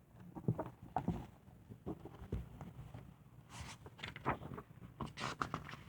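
Faint rustles and scattered small clicks of a paper picture book being handled, with a few brief rustling sounds near the middle and toward the end.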